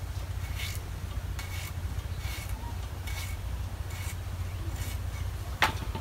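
Potato being sliced on a boti, the floor-mounted curved blade, in short scraping cuts about one a second. Near the end a single sharp clink as slices are dropped into a steel bowl.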